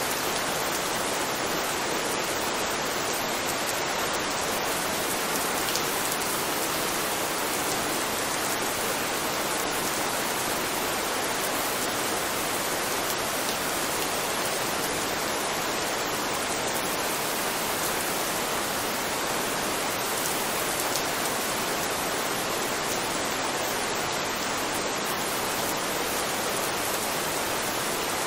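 Steady rain: an even, unbroken hiss of falling rain that holds the same level throughout.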